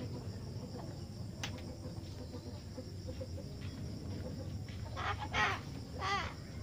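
A bird gives two short calls with a wavering pitch, about a second apart near the end.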